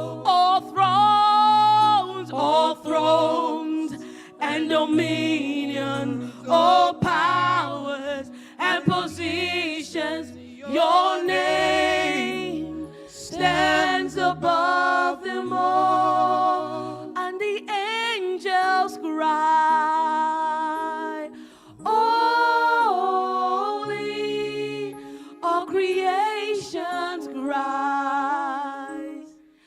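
Church worship team singing a slow worship song, several voices holding and gliding between long notes over steady low bass notes.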